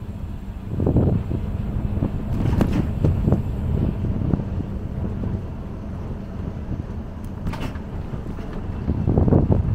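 Wind buffeting the microphone of a handlebar-mounted camera on a moving bicycle, over a low rumble from the ride, with a run of short knocks and rattles and two sharper clicks, about two and a half seconds in and again near eight seconds.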